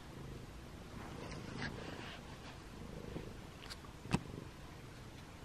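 Domestic tabby cat purring quietly while licking its paw, with a few small licking clicks and one sharper click about four seconds in.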